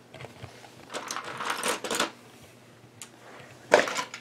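Loose LEGO plastic pieces clattering and rattling in a plastic bin after the build is smashed, in scattered clicks with a sharp plastic knock near the end.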